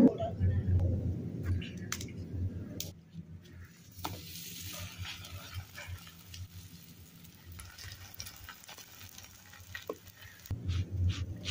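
Hands patting maize-flour dough flat on a cloth with soft, quick thuds, then a makki roti cooking on a hot iron tawa with a faint sizzle. The patting thuds come back near the end.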